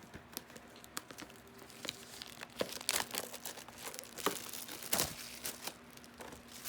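Plastic trading-card packaging being handled: irregular crinkling with sharper tearing crackles, loudest about three and five seconds in.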